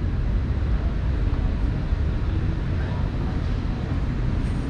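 Exhibition-hall ambience: a steady low rumble with faint crowd chatter.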